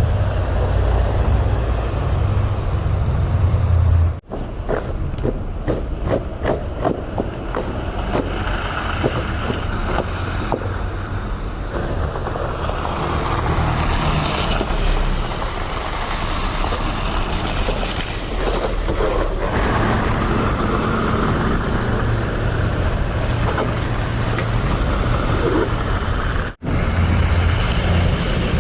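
Vehicle engines and traffic running on a city street, with a rattling stretch a few seconds in. The sound breaks off abruptly twice, at cuts between shots.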